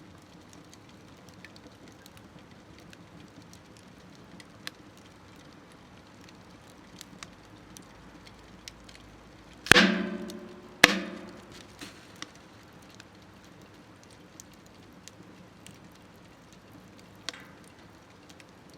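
Wood fire crackling in a smokeless metal stove, with scattered small pops. Near the middle come two loud knocks about a second apart, each ringing briefly.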